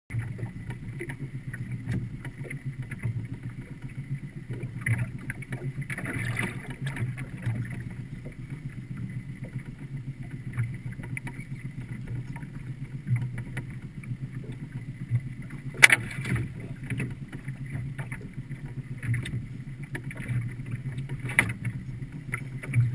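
Steady low rumble of a small boat on the water, with a few sharp knocks, the loudest about sixteen seconds in.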